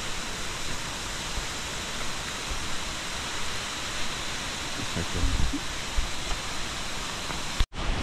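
Steady rush of water pouring down a waterfall. The sound drops out for an instant near the end.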